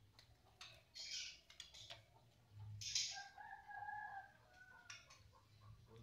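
A rooster crowing faintly, twice: two drawn-out, slightly falling crows about two seconds apart.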